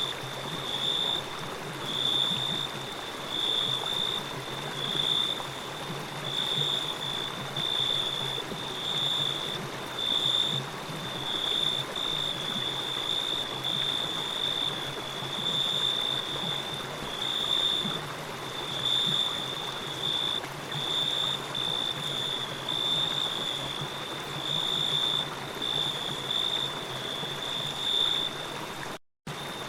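Forest ambience: water running steadily, with a high chirp repeating about once a second over it. The sound cuts out for an instant near the end.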